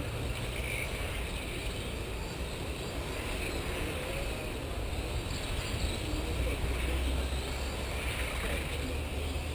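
1/10-scale electric RC Formula 1 cars running laps, a steady hiss of motors and tyres over a low rumble that swells about two-thirds of the way through.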